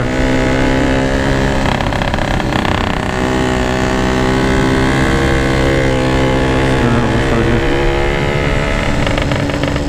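Yamaha RX-King's 135cc two-stroke single-cylinder engine running steadily on the move at light throttle, held back to save the last of the fuel, with small dips in pitch twice.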